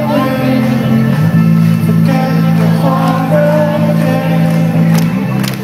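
Live rock band playing through a festival PA, heard from the crowd: picked electric guitar notes over sustained low bass notes that change about a second in and again near the end.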